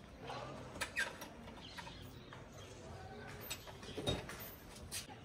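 Several sharp clicks and knocks, the loudest about four seconds in, over a faint background with bird calls.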